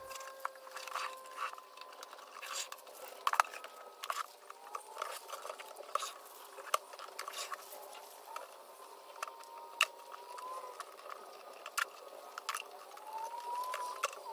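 Quiet, scattered light clicks, taps and rustles of hands working on a wooden cajón: masking tape being peeled from the faceplate edges and a pencil marking out the drill pattern.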